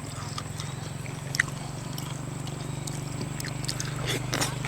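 Eating sounds: scattered clicks and small crackles of someone chewing and handling seafood, with one sharper click about a second and a half in, over a steady low hum.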